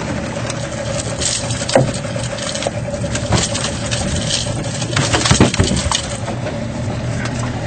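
A boat's engine running at idle with a steady hum, with scattered knocks and clatters of hard objects on deck.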